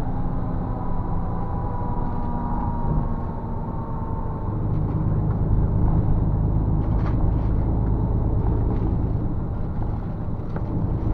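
Steady engine and road rumble inside a moving bus, with a faint high whine in the first few seconds. The rumble grows heavier about halfway through, with a few light rattles near the end.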